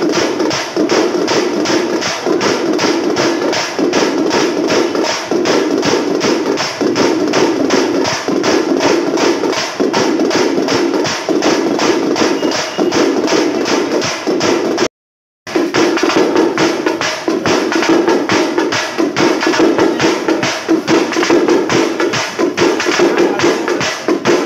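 Loud, fast drumming with a rapid, steady beat, cutting out for a moment about fifteen seconds in.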